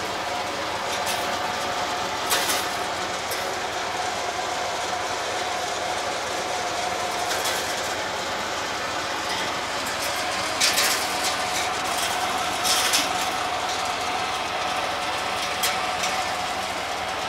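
Homemade hazelnut husking machine running steadily, its rotor churning nuts and husks with a continuous rattle and a steady hum, and a few sharp clacks as nuts strike the metal.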